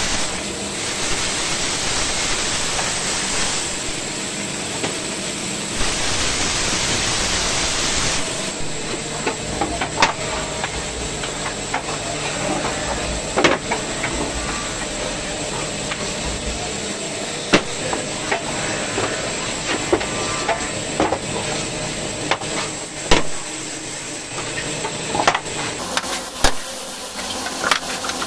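Band saw running and cutting through a stack of small wood pieces, a steady hissing noise for about the first eight seconds. After that come uneven rubbing and scraping strokes with scattered sharp knocks as the wooden box is worked over by hand, likely sanded.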